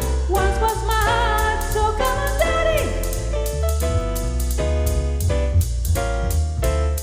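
Music with a sung vocal line over keyboard chords, a heavy bass and a steady beat.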